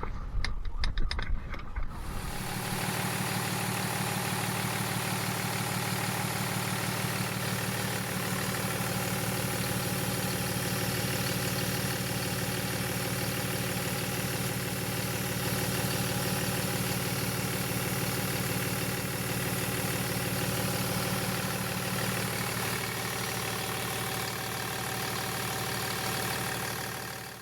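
Car engine idling steadily with a fast, even pulse. It follows about two seconds of low rumbling and a few clicks.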